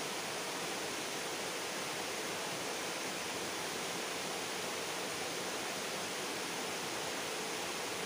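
Steady, even rushing of flowing river water.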